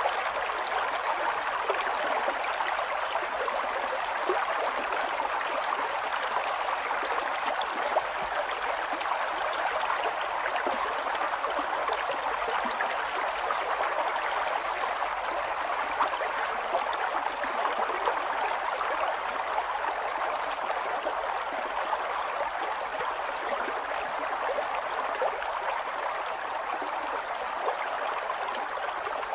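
Flowing water running steadily, with a dense patter of small splashes and bubbling.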